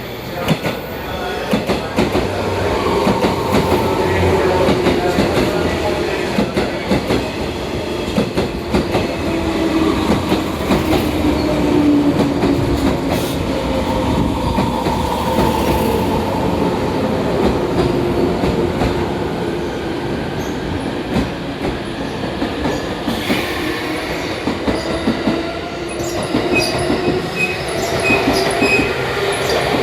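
A JR 185-series electric multiple unit pulling into the platform and braking, its wheels clicking over rail joints while a squealing whine slowly falls in pitch. Near the end comes a row of short, evenly spaced high beeps.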